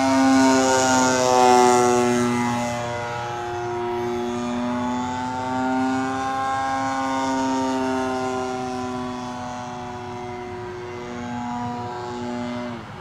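Gasoline engine and propeller of a large RC Piper J-3 Cub model airplane in flight, running at a steady pitch. It is loudest in the first couple of seconds as the plane passes close overhead, then a little quieter as it climbs away.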